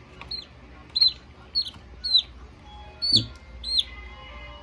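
Newly hatched chick peeping: six sharp, high peeps about half a second apart, each rising then falling in pitch.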